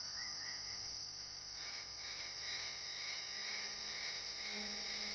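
Insect chorus in tropical rainforest: a steady, high-pitched drone.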